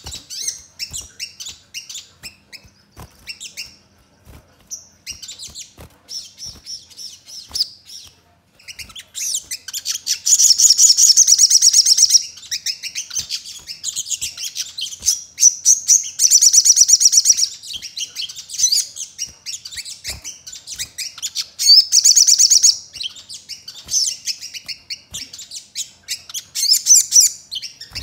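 Little spiderhunter (sogon) singing in its cage: high, rapid chirping trills in three loud spells of a second or more each, with sparser, shorter chirps between them.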